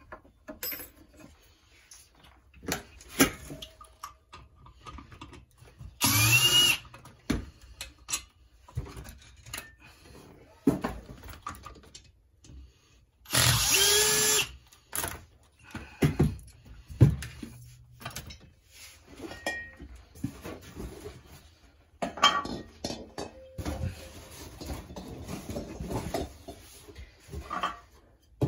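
Clicks and knocks of tools and parts being handled, with two short whirs of a power drill, one about six seconds in and a slightly longer one about thirteen seconds in.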